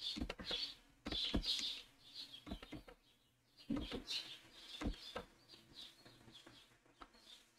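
Faint birdsong: short chirps repeating in clusters, with a few sharp clicks or knocks scattered through.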